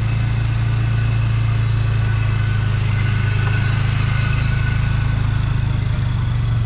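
Motor vehicle engine idling steadily, a loud, even low hum that holds one pitch.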